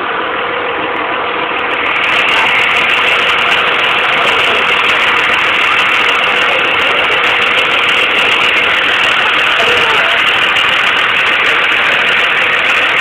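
A school bus engine idling close by: a loud, steady noise that grows louder about two seconds in.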